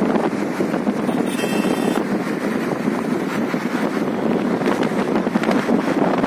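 Steady road and traffic noise from a car driving through city traffic, with wind rushing over the microphone.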